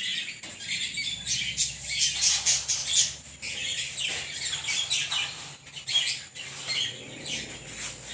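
A puppy tugging, shaking and dragging a padded fabric dog bed across a concrete floor: rapid rustling of the fabric and scraping on the floor, in quick irregular bursts.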